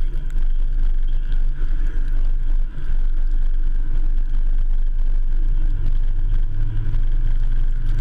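Ford F-150 pickup driving along a snow-covered road, picked up by a camera mounted on the truck: a steady low rumble of engine and tyres on the snow.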